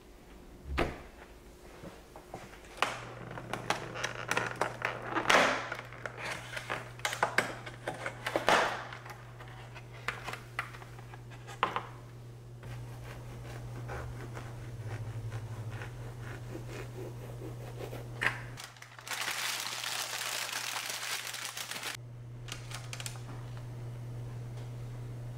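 Refrigerator door thudding shut, then a stretch of sharp crinkling and clicking as a clear plastic clamshell of croissants is handled, over a low steady hum. Near the end comes a few seconds of steady hiss, and a serrated knife cuts through the flaky croissant.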